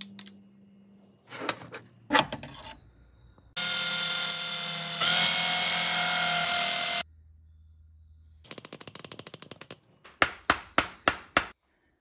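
A power drill running steadily for about three and a half seconds, boring out a plastic screwdriver handle; its pitch shifts once partway through. Before it come a few clicks, and after it a quick run of light clicks and six sharp knocks.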